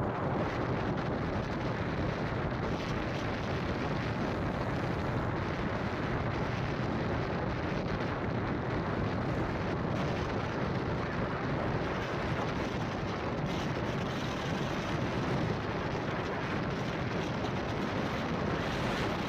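Steady road and wind noise from a moving vehicle travelling along a highway, an even rushing sound with no breaks.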